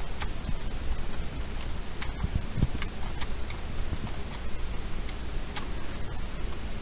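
A 3x3 Rubik's cube being turned by hand, its plastic layers giving irregular short clicks and snaps as the moves are made to insert a middle-layer edge, over a steady background hiss.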